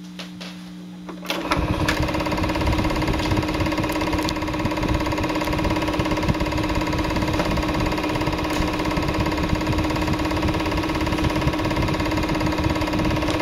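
Film projector running: a steady, fast mechanical clatter with a hum, which starts abruptly about a second and a half in.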